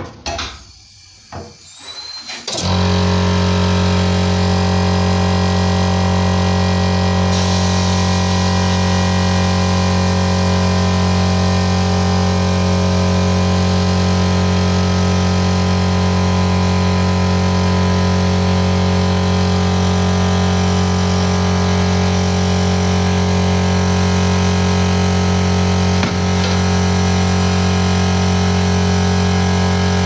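A machine motor starts suddenly about two and a half seconds in and then runs with a loud, steady hum that does not change.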